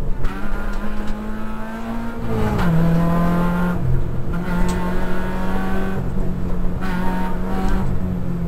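Peugeot 106 rally car's four-cylinder engine held at high revs under load, heard from inside the stripped cabin. The pitch dips a little about two and a half seconds in and then holds steady, with a few sharp clicks over it.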